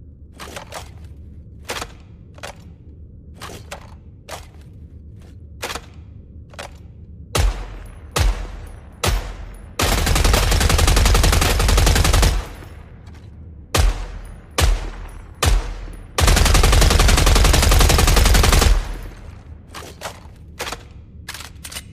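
Knightsbridge machine gun sound effect: scattered single shots and short bursts, then two long bursts of rapid automatic fire of about two and a half seconds each, one near the middle and one later on.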